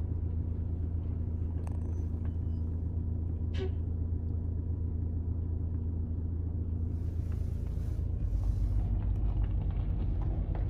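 Steady low engine rumble heard from inside a car's cabin, with an old tipper truck manoeuvring close alongside; the rumble grows louder about eight seconds in. A single short click a few seconds in.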